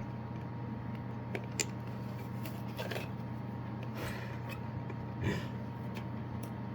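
Faint scattered clicks and rustles of objects being handled, over a steady low hum.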